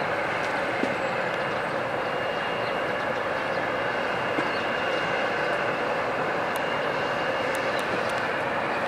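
A steady, unbroken outdoor background roar of distant traffic, with a faint steady high tone over it.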